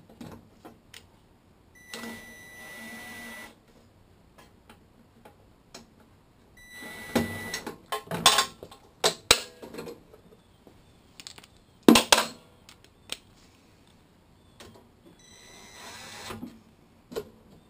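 Hand tools working the bolts that hold a lawn mower's recoil starter housing onto the engine: a series of small metallic clicks and clinks, a quick run of sharp clicks partway through, and one loud knock about two thirds of the way in.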